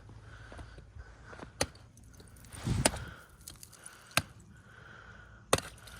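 A tool chopping at lake ice, four separate sharp strikes a second or so apart, the second one heavier and longer.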